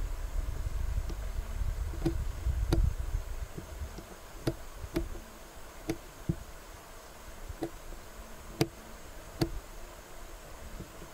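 About a dozen short, sharp knocks at irregular intervals, the loudest a little past the middle, over a low rumble like wind on the microphone in the first few seconds.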